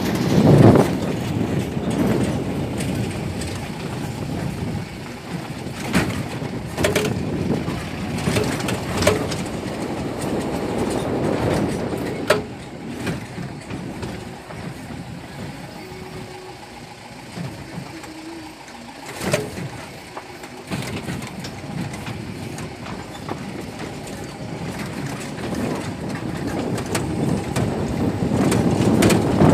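A vehicle driving over a rough unpaved road, heard from on board: steady road and running noise, with a few sharp knocks as it jolts over bumps, quieter for a while midway.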